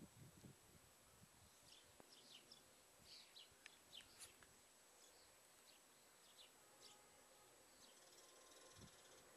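Near silence outdoors, with a run of faint, quick bird chirps in the middle.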